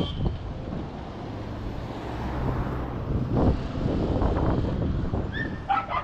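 Street traffic going by, a vehicle passing through the middle, with a few short high yelps near the end.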